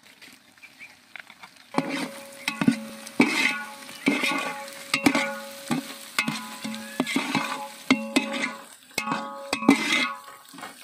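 A flat metal spatula scrapes and knocks around the inside of a large metal cooking pot, stirring onions, mint and coriander frying in oil. Each stroke makes the pot ring. The repeated strokes start about two seconds in, over a light sizzle of frying.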